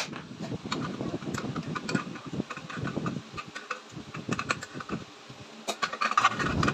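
Irregular light clicks, knocks and rattles of metal parts being handled as the electric bicycle's BLDC hub motor, wheel and stator are moved about, with a cluster of sharper clicks near the end.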